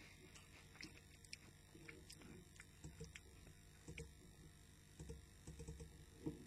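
Faint crunching and mouth clicks of a crisp being chewed, coming as scattered small ticks and soft low thumps.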